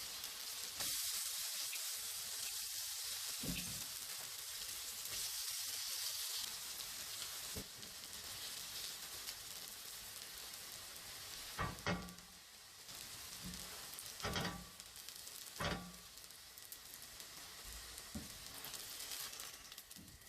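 Food sizzling as it fries in a pan, a steady hiss that drops a little in level about a third of the way through. A few sharp knocks of a utensil against the pan come in the second half.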